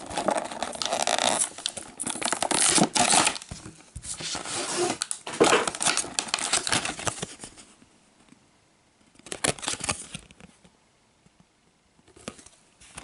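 Clear plastic blister of a toy-car blister pack being torn and peeled off its cardboard backing card: crackly tearing and crinkling in several bursts, the longest in the first eight seconds, with short crinkles near the end.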